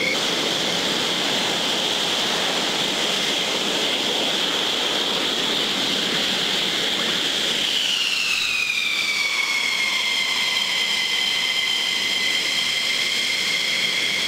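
F-15 fighter's twin jet engines running at taxi power: a loud, steady high whine over a rushing noise. About eight seconds in, the whine glides down in pitch and then holds at the lower pitch.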